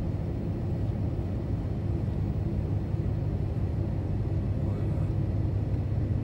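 Steady low rumble of a car driving on a highway, heard from inside the cabin: engine hum and road noise.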